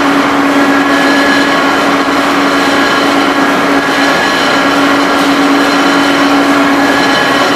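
Ring rolling machine running as it rolls a red-hot steel ring: a loud, even machine drone with a steady hum and higher whining tones, the hum dropping out briefly twice.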